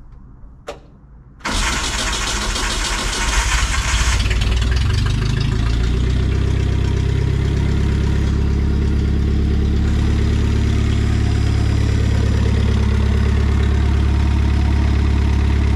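1967 Datsun 520 pickup's engine starting about a second and a half in, running up noisily for a couple of seconds, then settling into a steady idle. This is its first start on a newly fitted Datsun 521 wiring harness.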